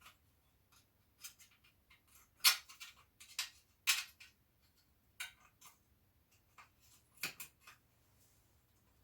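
Scattered sharp clicks and light metal knocks from parts and bolts being handled while a new front mudguard is fitted to a motorcycle. The two loudest knocks come about two and a half and four seconds in.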